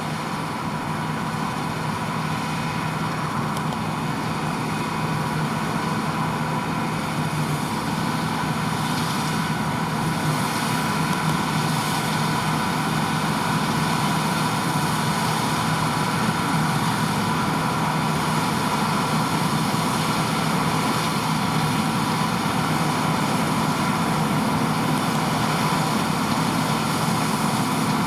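John Deere T560 combine harvester running steadily while cutting barley: a constant engine drone with a thin steady whine from the machinery. It grows a little louder over the first several seconds.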